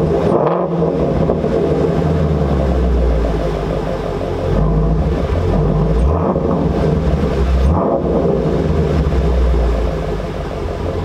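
Exhaust of a Ford Shelby GT350's flat-plane-crank 5.2-litre Voodoo V8, running loud and steady with several short throttle blips, then dropping slightly in level near the end.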